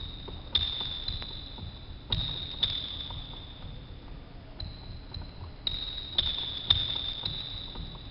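Athletic shoes landing on a hardwood sports-hall floor during single-leg hops. Each landing is a thud with a brief high-pitched squeak that rings on for a moment. The landings come irregularly, about one or two a second, with a quieter gap in the middle.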